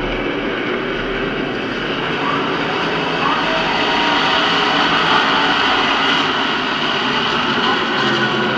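Distant pack of NASCAR K&N Pro Series West stock cars' V8 engines running around the oval, a continuous engine drone that grows gradually louder as the field comes closer.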